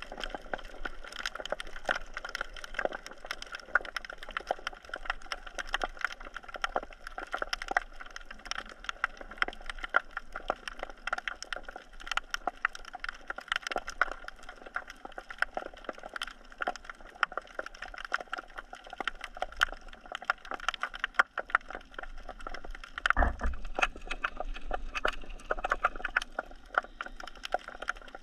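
Underwater crackle of snapping shrimp: dense, irregular sharp clicks heard through an action camera's waterproof housing. Near the end there is a brief low rumble.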